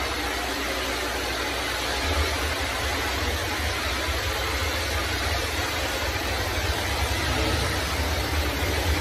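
Pressure-washer jet blasting concrete: a steady hiss of high-pressure spray over the low drone of the machine's engine. The low drone grows stronger about two seconds in.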